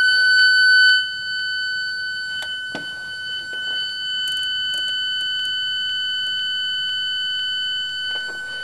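Homemade 4-bit linear PCM synthesizer built from TTL logic chips, playing its freshly programmed stepped waveform on a loop as a steady, high-pitched buzzing tone. It is loud at first and drops in level about a second in, with a few faint clicks along the way.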